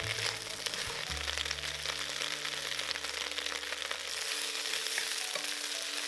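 Napa cabbage sizzling and crackling in hot oil in a nonstick wok as it is stir-fried with a wooden spatula.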